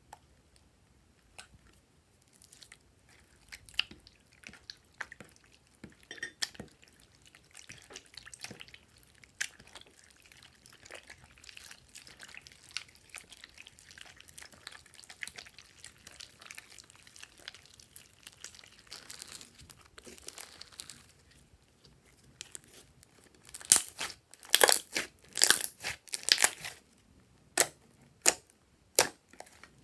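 Glossy slime being stirred and kneaded by hand in a glass dish: soft wet squishing with many small clicks and crackles. From about 23 seconds in, as the slime is pressed and stretched, a run of much louder sharp pops and crackles.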